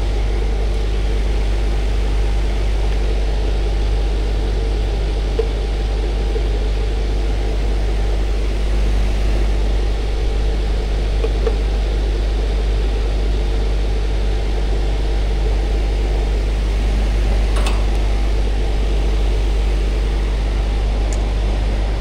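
Three-phase Goodman air conditioner condensing unit running with a steady, rough low hum and growl, fed through a faulty contactor with carbon buildup on one leg that is not passing full voltage.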